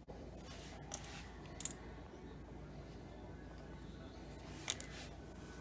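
Three faint, brief scratchy clicks over a steady low hum: a paint marker's tip working along the edge of a plastic console vent while the part is handled, the last about three-quarters of the way through the loudest.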